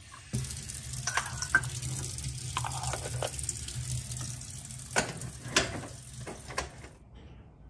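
Tap water running into the metal base of a stovetop moka pot, with a series of sharp metallic clinks and knocks as the pot's parts are handled and set down on the counter; the two loudest knocks come about five seconds in.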